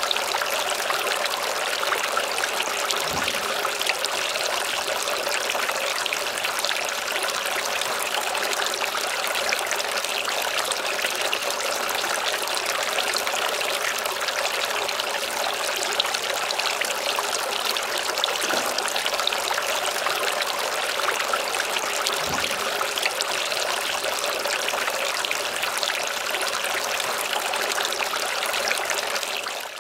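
Water trickling and splashing steadily as it spills from the tiers of a three-tier concrete outdoor fountain into the basins below. The sound fades out at the very end.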